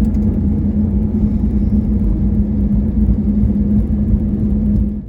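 Airliner cabin noise: a steady low engine rumble with a constant hum, cutting off abruptly at the end.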